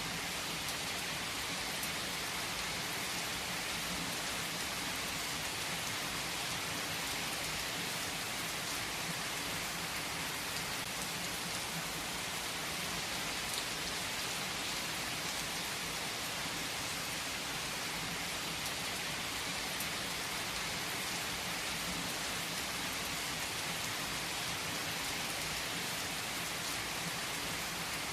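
Steady, even rain falling on surfaces, a constant hiss with a few individual drops ticking out now and then.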